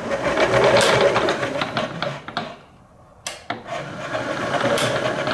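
Bridgeport vertical mill's 2 hp three-phase spindle motor running forward on a Teco L510 variable frequency drive, a steady mechanical whir. It drops away briefly about three seconds in, then a click and it runs again.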